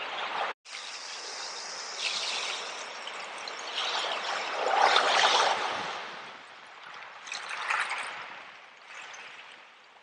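Small waves breaking and washing up over a shell-and-pebble beach, the water hissing as it runs through the shells. It swells loudest about five seconds in and again a little under eight seconds in, and the sound cuts out for an instant about half a second in.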